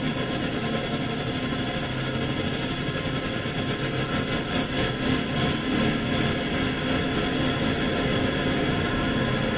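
Designed sound effect from a sound-effects library: a dense, steady mechanical drone, many unchanging tones stacked over a low rumble.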